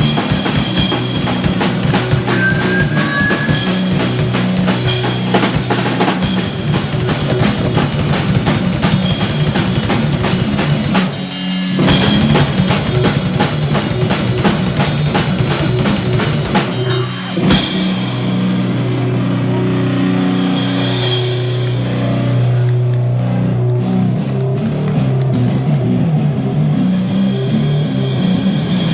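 Live rock band playing loudly: drum kit, distorted guitars and bass. The playing breaks off briefly twice, and near the end the cymbals drop out for a few seconds, leaving low guitar notes.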